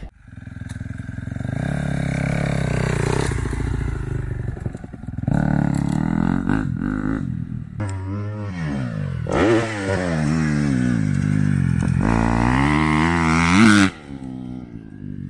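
Suzuki motocross bike engine revving hard as it is ridden around the track, its pitch rising and falling over and over as the rider works the throttle. The sound stops abruptly near the end.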